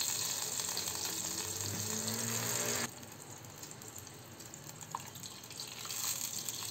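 Water running from a kitchen tap into a drinking glass, its pitch rising as the glass fills, shut off abruptly just under three seconds in. After that, fainter water is poured from the glass into a saucepan of browned chicken bones to make stock.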